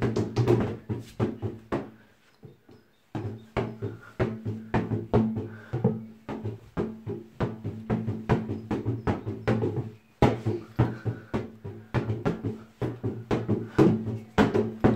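Rubber balloon being batted by hand against a tiled wall in quick succession, about two to three taps a second, each tap leaving a short low ring in the tiled room. The taps pause for about a second near the start and again briefly about two-thirds through.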